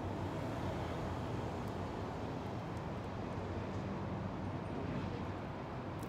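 Steady low outdoor rumble with a faint underlying hum and no distinct events.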